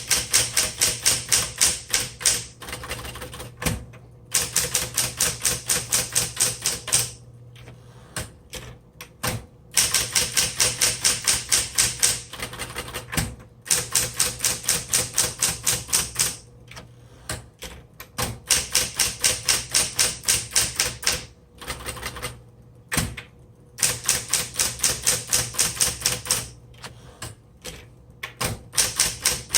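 Smith Corona Electra 120 electric typewriter being typed on: runs of rapid, even key strikes, about seven a second, broken by short pauses, over the steady hum of its running motor.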